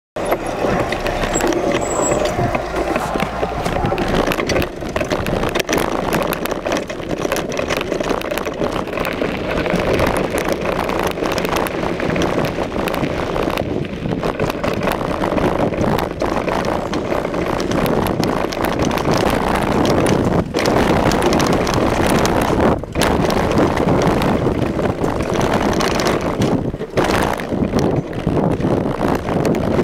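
Steady noisy rush of a mountain bike descending a dirt trail: wind on the microphone mixed with knobby tyres rolling over dirt and gravel and the bike rattling.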